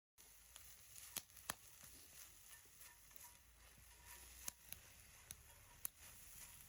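Wood campfire crackling faintly, with a few sharp pops scattered through it.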